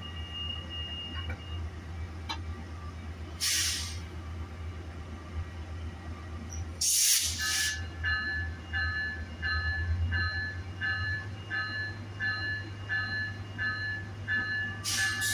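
Metrolink diesel locomotive idling with a steady low rumble, with short bursts of air hiss about three and a half seconds in and again about seven seconds in as the car doors shut. From about eight seconds a departure bell rings steadily, about twice a second, before the train pulls out.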